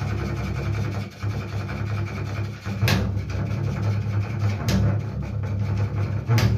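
Construction machinery running with a steady low drone, blended with low bowed notes on a double bass's E string. Three sharp knocks come through, about three seconds in, near five seconds, and at the end.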